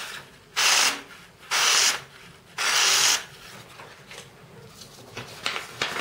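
Knife blade drawn three times against a surface, each stroke a rasping scrape about half a second long, roughly a second apart.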